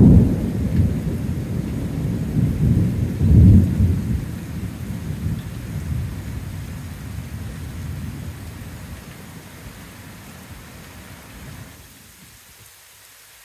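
Thunder rolling after a lightning strike: a deep rumble with a second surge about three and a half seconds in, then dying away over the next several seconds until it is gone near the end.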